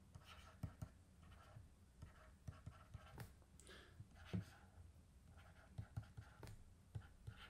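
Faint, irregular taps and scrapes of a stylus writing on a tablet screen, over near silence.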